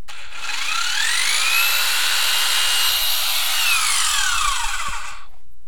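Power drill running free: its motor whine rises as it spins up, holds steady for about two seconds, then falls away as it spins down and stops about five seconds in.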